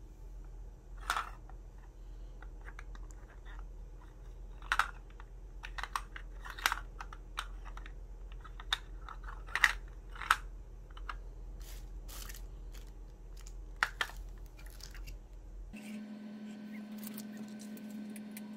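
Irregular clicks and knocks of hard plastic as a hand handles a cat food puzzle toy, pressing on its rings and clear treat cups.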